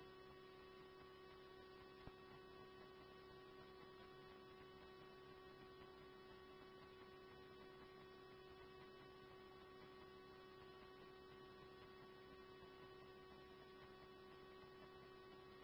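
Near silence with a faint steady electrical hum between scanner radio transmissions, and one tiny click about two seconds in.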